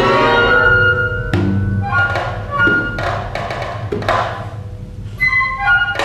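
Contemporary chamber music for janggu (Korean hourglass drum) and small string ensemble. Bowed strings hold sustained notes, cut by a series of sharp struck accents.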